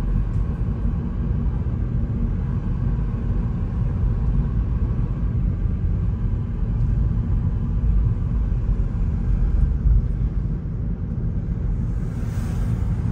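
Steady low rumble of a car driving along a city street, heard from inside the cabin.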